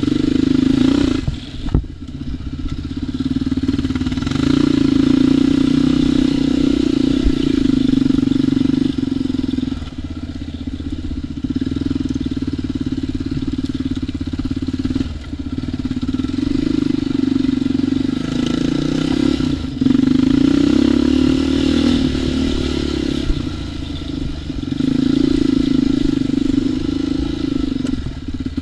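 ATV engine running under way on a trail ride, the throttle opening and easing off every few seconds, so the engine note swells and dips repeatedly.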